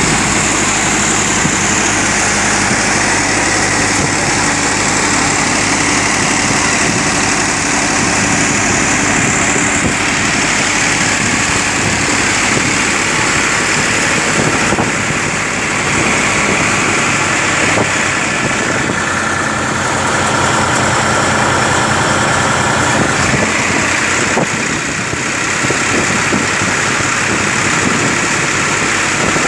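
Massey Ferguson 7250 DI tractor's diesel engine running steadily at a little over 1,000 rpm, driving a Shree Ganesh multi-crop thresher whose drum and blower add a steady whir and hiss.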